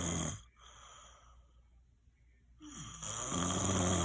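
A sleeping person snoring loudly. One snore ends just after the start. After a quiet gap, the next snore begins about three seconds in.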